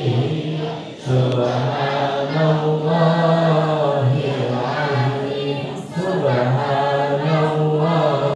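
A group of voices chanting Islamic prayers together in unison, a long sustained recitation that dips briefly about a second in and again near six seconds.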